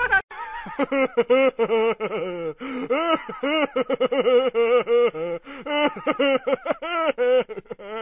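A high-pitched, cartoonish voice chattering or laughing in quick syllables that rise and fall in pitch, several a second, a comic sound effect.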